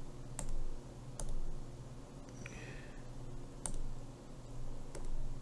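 A stylus pen tip tapping on a tablet's glass screen: several short, sharp clicks a second or more apart, over a faint steady low hum.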